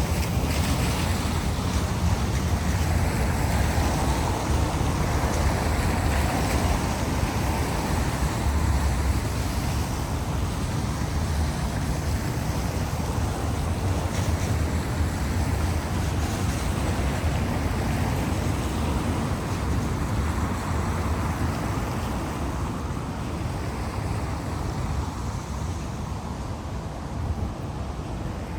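Outdoor ambience dominated by a steady rushing noise with a heavy low rumble that swells and eases, consistent with wind buffeting the microphone.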